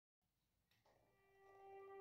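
Near silence, then background music fading in with long, steady held tones from about a second in.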